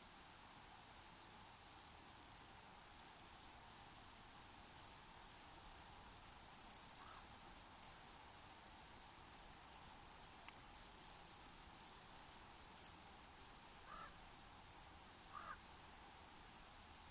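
Faint cricket chirping in a steady rhythm of about four short high chirps a second, over a soft even hiss. A few brief lower calls come late on, and there is one sharp click about ten seconds in.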